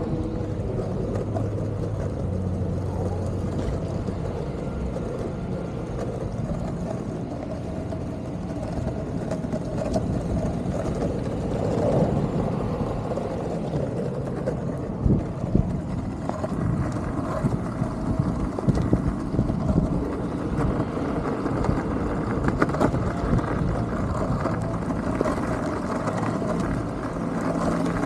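Bustin Sportster longboard's urethane wheels rolling on asphalt, a steady rumble. In the second half, sharp clicks and knocks come now and then.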